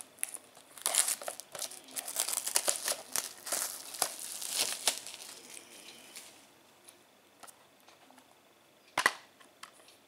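Plastic shrink wrap crinkling and tearing as it is peeled off a Blu-ray case, in dense crackles for the first several seconds. Then a quiet stretch and a single sharp click about nine seconds in.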